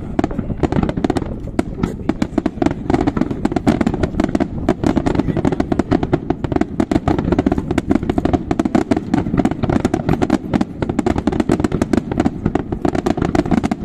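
Fireworks display: a rapid, unbroken barrage of shells bursting and crackling, many sharp reports a second over a continuous rumble.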